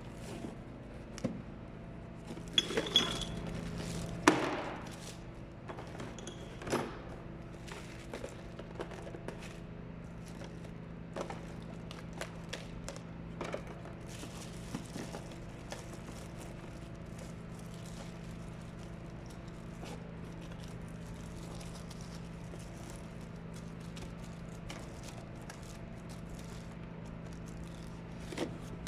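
Sharp metallic clinks and knocks, a cluster of them loudest a few seconds in and then scattered, over a steady electrical hum.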